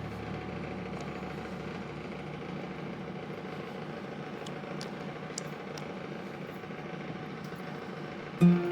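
Steady low rumbling background hum, with a few faint short ticks about halfway through.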